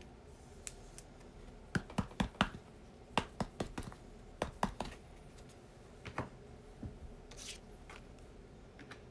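Hands handling a stack of chrome baseball trading cards: a run of sharp clicks and snaps, bunched mostly in the first half, then a brief swish near the end.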